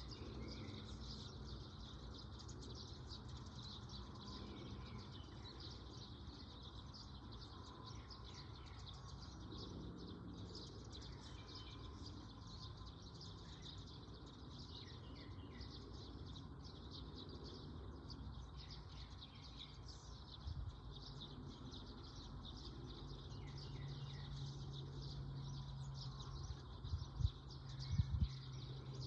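Small birds chirping and twittering continuously outdoors, with a steady low hum that gets louder over the last few seconds and a few short knocks near the end.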